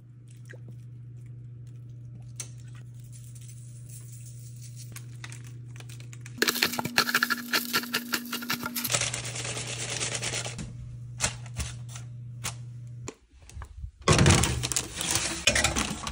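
Pepper mill grinding over a tray of vegetables: a dense run of rapid clicks lasting about two and a half seconds, starting about six seconds in. Near the end, a baking tray knocks and clatters as it goes into the oven. A steady low hum sits underneath.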